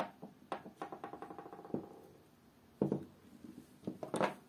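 Clicks and knocks of a plastic trigger-switch assembly and its wires being handled and pressed into an open corded drill's plastic housing: a sharp knock at the start, another just before three seconds, and lighter rattles and faint rapid ticking between.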